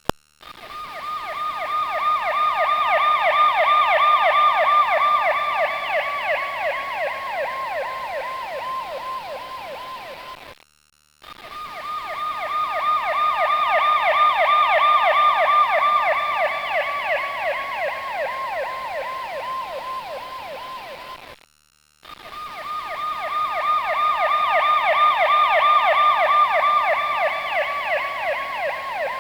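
Emergency vehicle siren with a fast warble of several rises and falls a second. Each pass swells, then fades as its pitch sinks slightly, and the siren breaks off twice for about half a second before starting the same pass again.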